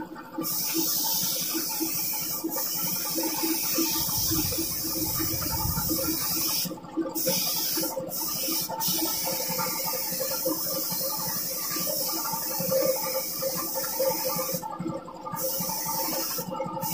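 Gravity-feed paint spray gun hissing steadily as it sprays red candy paint onto a motorcycle wheel rim, cut off briefly about five times when the trigger is let go.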